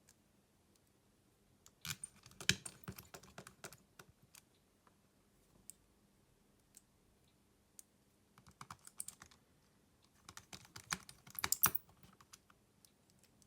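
Quick clusters of small clicks and taps from tools and plastic phone parts being handled during smartphone disassembly, in three bursts with short quiet gaps between.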